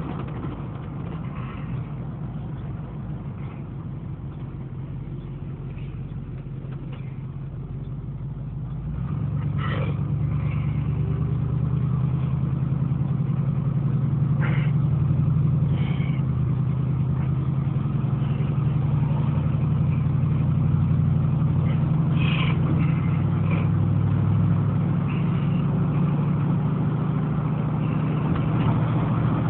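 An engine running steadily with a low hum, growing louder and fuller about nine seconds in, with a few faint brief clicks over it.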